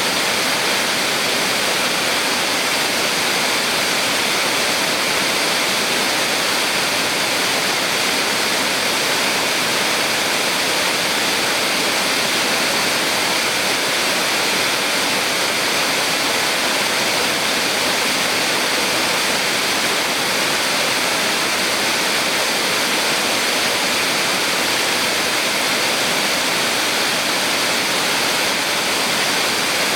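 Small waterfall on a mountain stream, water pouring and rushing in a steady, unbroken hiss.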